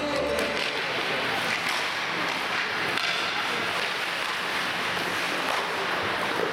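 Ice hockey play in a large rink hall: skates scraping on the ice and sticks hitting the puck, over a steady hall noise. Music from the rink speakers stops about half a second in.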